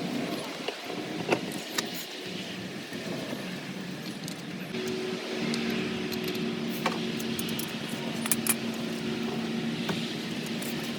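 Scattered light metallic clinks and clicks, like tools and lug nuts being handled during a tire swap, with a steady hum that starts about five seconds in.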